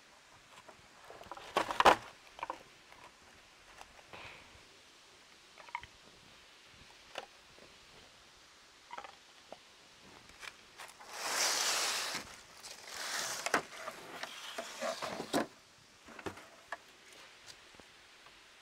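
Bamboo being cut and handled: scattered knocks and clicks, a sharp knock about two seconds in, and two longer stretches of rustling and scraping past the middle.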